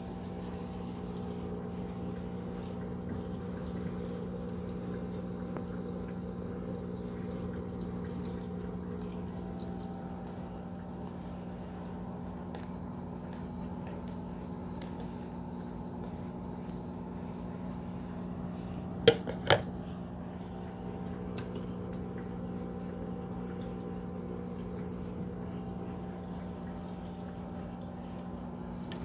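Aquarium pump running with a steady hum, water trickling and bubbling in the tank. About two-thirds of the way through come two sharp knocks, half a second apart.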